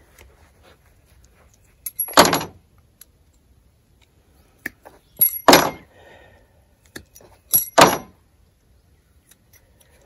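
Framing nails being cut off a collated strip with a hand tool: three short metallic snaps with a jingle of loose nails, about 2, 5½ and 8 seconds in, with small clicks between.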